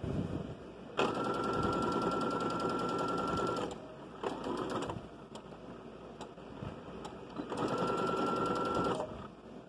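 Domestic sewing machine stitching through layers of fabric in two runs of a few seconds each, with a steady high whine and rapid needle ticking. Between the runs, fabric rustles as it is repositioned under the foot.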